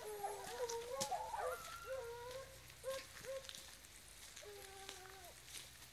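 Several hunting dogs baying: overlapping barks and yelps at first, then a few single barks and one longer drawn-out bay near the end.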